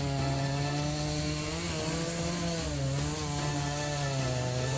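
Two-stroke chainsaw running at full throttle in a felling cut through a large red oak. Its engine pitch sags under load about two seconds in and again near three seconds, then recovers.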